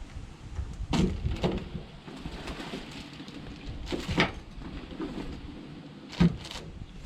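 A few short knocks and thumps over a low rumble, the loudest about six seconds in.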